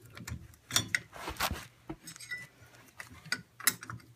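Brake pads and their metal retaining clip clicking and clinking as they are worked into a utility vehicle's brake caliper with pliers: a handful of sharp metallic clicks with a short scraping rustle about a second and a half in.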